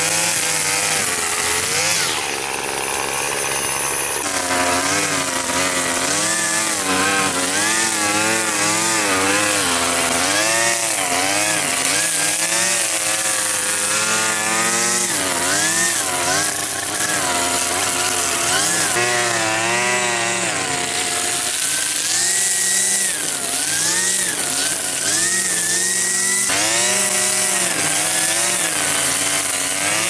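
Cub Cadet string trimmer running while cutting grass, its pitch rising and falling again and again as the throttle is worked. It drops back briefly about two seconds in.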